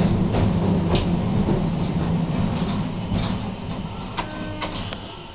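Tram with nose-suspended traction motors running on street track: a steady low motor hum, with a few sharp wheel clicks, that fades away over the second half as the tram eases off. A brief pitched squeal with clicks comes near the end.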